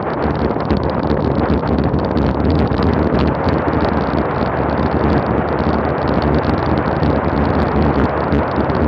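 Heavy wind buffeting on a bike-mounted action camera's microphone during a road-bike descent at about 40 mph: a loud, steady rush of noise with constant fine crackle.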